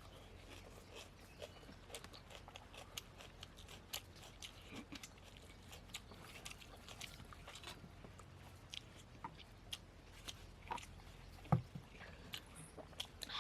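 People eating mutton curry and poori: chewing with irregular small mouth clicks and smacks, and one stronger knock about 11.5 seconds in.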